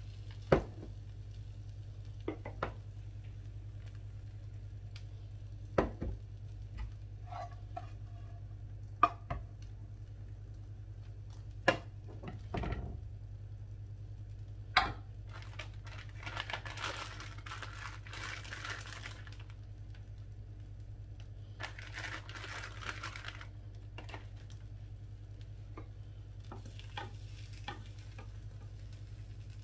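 Wooden spatula knocking and scraping in a nonstick frying pan while an omelette is cooked, with about five sharp taps in the first half. About halfway through come two longer stretches of hissing sizzle, over a steady low hum.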